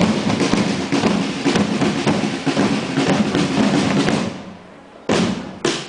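Marching drums of a costumed historical procession playing a dense rolling beat that dies away about four seconds in, followed by a few sharp single strokes near the end.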